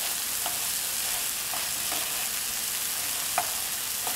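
Cubed eggplant and summer squash sizzling in olive oil in a sauté pan, with a steady hiss. A wooden spoon stirs them, knocking against the pan now and then, most sharply about three and a half seconds in.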